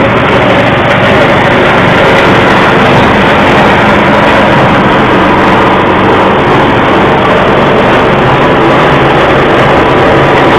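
Livestock feed chopper running steadily, a loud continuous machine sound with a steady motor hum.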